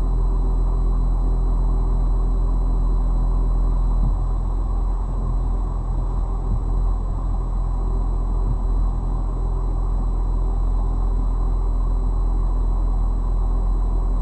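A car driving, with a steady low rumble of engine and road noise; the engine hum changes pitch about four seconds in. No crash impact is heard.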